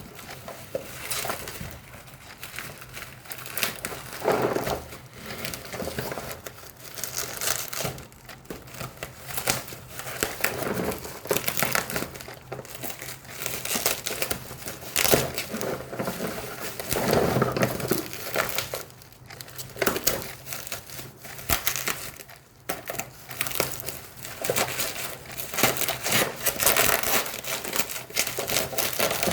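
Snack packaging crinkling and rustling unevenly as it is handled and opened during an unboxing.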